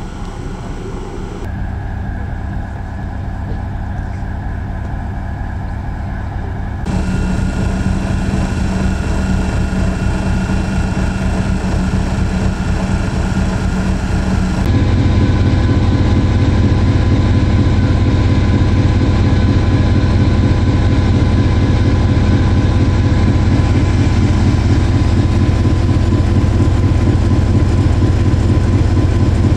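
British Rail Class 73 electro-diesel locomotive's English Electric four-cylinder diesel engine idling steadily, getting louder in two steps, about a quarter of the way in and about halfway through.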